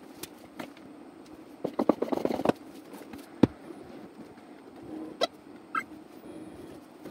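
Bambu Lab H2-series 3D printer with a steady hum, scattered sharp clicks, a clattering cluster of knocks about two seconds in and a short run of ticks near the end.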